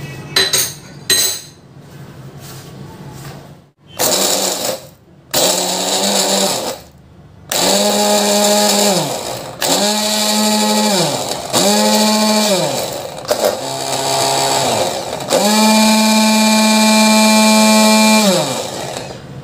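Electric blender run in about six pulses, grinding garlic with chili, salt and spices into a paste. Each pulse is a motor whine that climbs as it spins up and sinks as it slows, and the last pulse is the longest. A few clicks and knocks come first.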